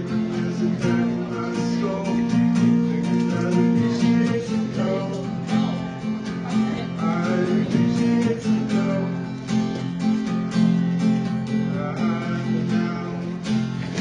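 Acoustic guitar strummed in a steady rhythm, playing chords of a song.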